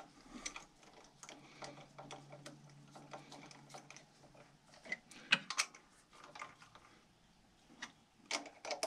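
Light, irregular metallic clicks and taps from hand-fitting the intake camshaft sprocket and threading its bolt finger tight on a BMW N13 engine. A few louder clicks come about five seconds in and again near the end, over a faint low hum in the first half.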